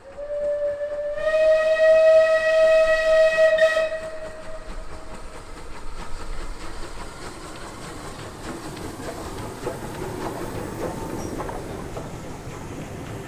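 Steam locomotive whistle: one long blast that starts softly and swells about a second in, lasting about four seconds. The train then keeps running with steam hiss and irregular clicks from the wheels and track.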